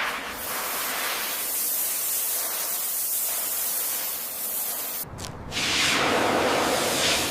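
Pressure washer spraying in a steady hiss. It breaks off briefly about five seconds in, then resumes heavier.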